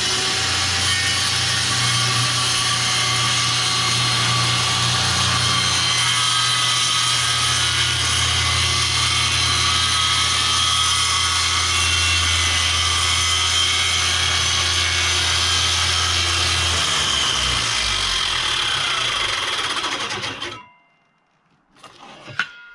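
Power saw cutting through a countertop to shorten it, running steadily for about twenty seconds and then stopping near the end.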